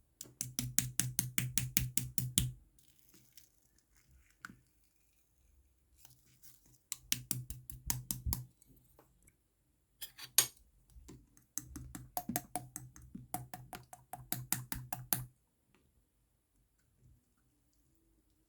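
Rapid, evenly spaced clicking in three bursts of several seconds each, with quieter gaps between them.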